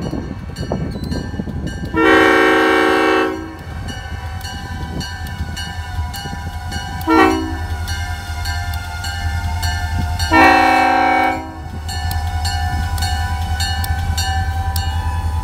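Diesel freight locomotive's air horn sounding the grade-crossing signal: a long blast, a short one about four seconds later, then a final long blast. Beneath it runs the steady low rumble of the locomotive's diesel engine, growing louder as the train approaches.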